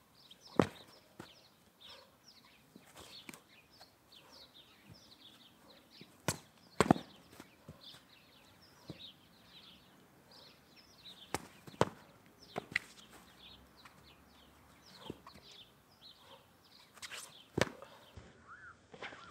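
Foam training sabres smacking against each other in sparring: sharp single hits a few seconds apart, often two in quick succession, with small birds chirping throughout.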